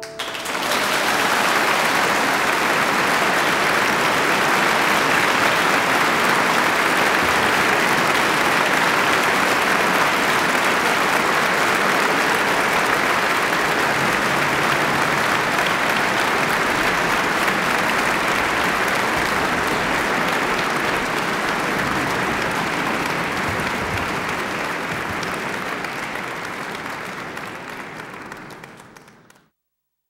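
Large audience applauding steadily, then tapering off over the last few seconds before stopping.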